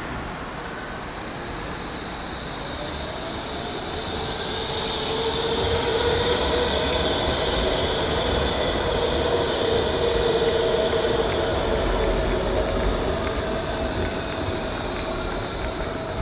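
Articulated electric tram passing close at low speed. Its motors whine and its wheels run on the street rails, with a steady high-pitched squeal. The sound swells to its loudest midway as the tram goes by, then fades.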